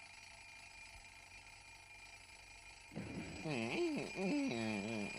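Quiet for about three seconds, then a cartoon character's wordless voice sliding up and down in pitch.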